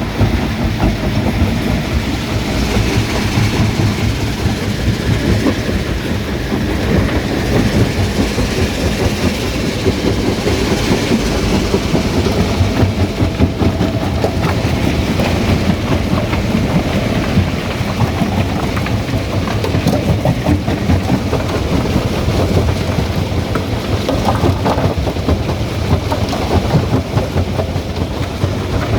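Stone crusher running, a loud steady rumble with a continuous clatter of rock being broken.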